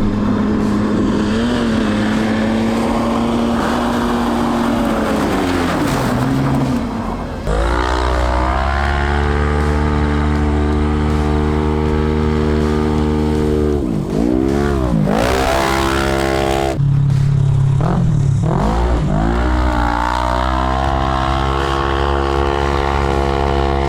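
Off-road vehicle engine being driven hard: the revs climb about a third of the way in and are held high and steady, then drop sharply and pick up again twice.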